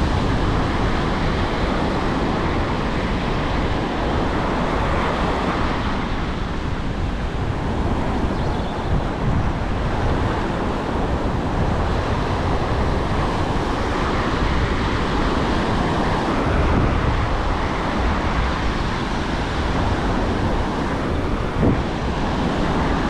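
Surf washing onto a sandy beach, with wind buffeting the microphone in a steady rumble. A single brief knock near the end.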